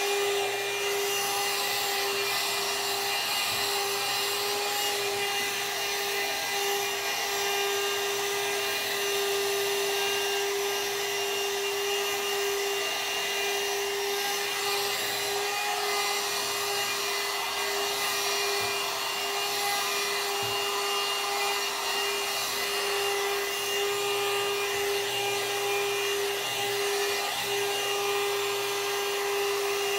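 One-step hot-air brush hair dryer running steadily on its low setting: a constant motor whine over the rush of blown air.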